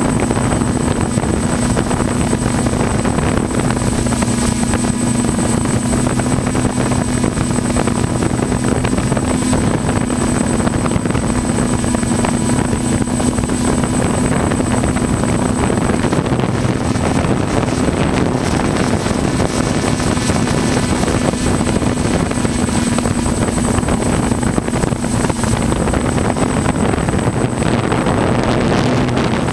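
Multirotor camera drone's propellers and motors running, heard from the drone itself: a steady hum of unchanging pitch with a thin high whine and a rush of air over it.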